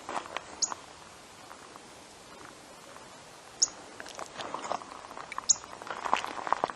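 Footsteps crunching on the dry ground of a desert wash. They stop for a few seconds in the middle, then go on. Three short, high, falling chirps from a bird come a couple of seconds apart.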